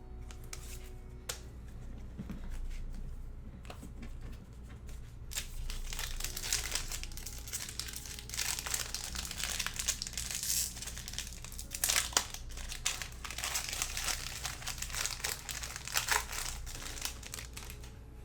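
A trading-card pack wrapper being torn open and crinkled in the hands. A few light clicks come first, then from about five seconds in a dense crinkling crackle goes on until near the end.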